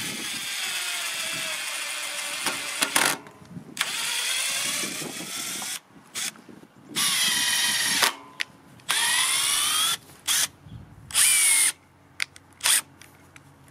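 Makita DTD154 18 V brushless impact driver driving a 5 cm screw into wood in its slow mode. Its motor whine runs in several starts and stops, rising and falling in pitch with the trigger, and ends in a few short, quick bursts in fast mode near the end.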